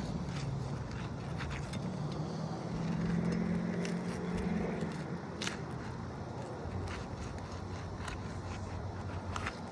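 Scraping and sharp ticks of an asphalt roof shingle being pried loose, over a steady low hum.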